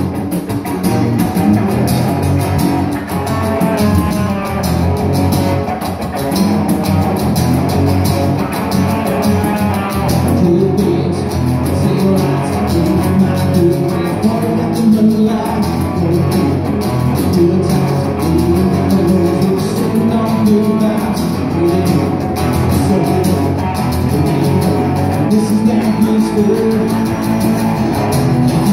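Live southern rock band playing a song: strummed acoustic guitar, electric bass and electric guitar over a drum kit, with a man singing lead.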